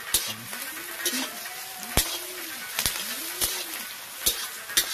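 Sliced onions sizzling in oil in a black kadai, with a metal spatula scraping and clicking against the pan every second or so as they are stirred.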